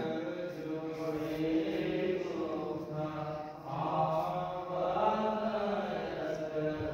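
Chanting voices, long held notes that slowly rise and fall in pitch.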